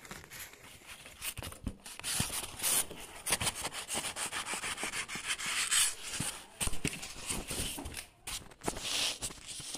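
Packaging being handled: cardboard box flaps, polystyrene end blocks and plastic wrap rustling, scraping and crinkling irregularly, with many small clicks, as the packed soundbar is worked out of its box.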